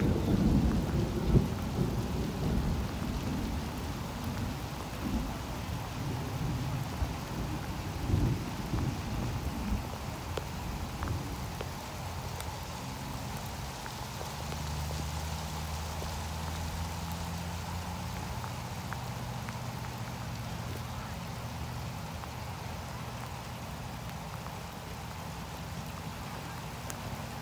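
Wind buffeting the microphone as a gusty low rumble, loudest in the first ten seconds. It then eases into a steady low hum.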